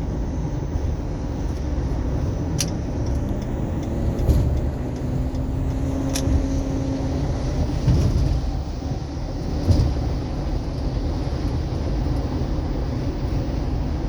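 Steady road and engine rumble heard from inside a moving car's cabin, with a few sharp brief clicks.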